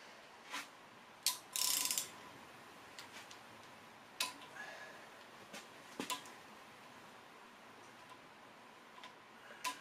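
Scattered light metallic clicks and one brief rattle about a second and a half in, from a Honda K24 engine's timing chain being worked by hand onto the cam sprockets.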